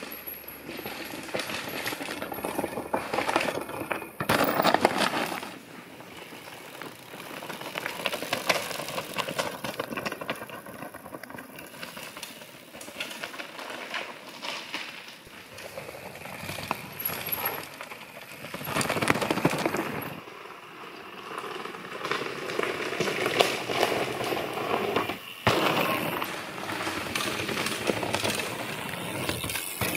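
Mountain bikes descending a rocky trail: tyres crunching over stones and loose gravel, with frame and drivetrain clattering. It swells loud several times as riders pass close by.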